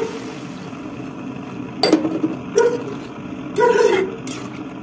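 Water is added to fried masala in a metal kadai and stirred in with a metal spatula. The spatula scrapes and knocks against the pan three times, about two, two and a half and four seconds in, each knock ringing briefly.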